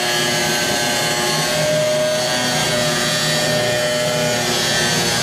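Electric angle grinder with a thin cut-off wheel cutting through the sheet-steel floor pan of a Triumph Spitfire. It runs steadily under load, a continuous whine over a gritty cutting noise.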